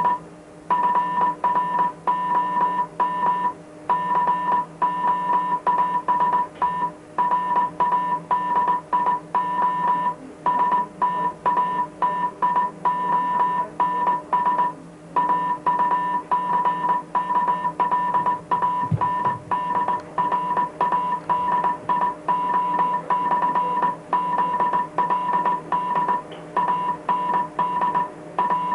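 Morse code from coast station Wellington Radio ZLW sending its closing advisory: a single steady beep keyed rapidly on and off in dots and dashes, over a faint steady low hum.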